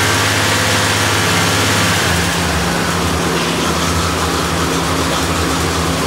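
1985 Corvette's 5.7-litre V8 idling steadily with the air conditioning running. Its low hum changes slightly about two seconds in.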